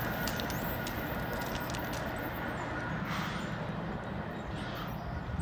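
A CSX diesel locomotive at the rear of a freight train running away from the listener: a steady low rumble of the engine and wheels on the rails, with a low hum becoming clearer about three seconds in.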